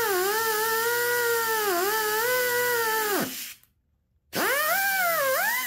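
Pneumatic cut-off tool with a thin abrasive cut-off wheel cutting quarter-inch steel rod, a high whine that sags in pitch as the wheel bites. It winds down about three seconds in, stops briefly, then spins up again for a second cut and is winding down at the end.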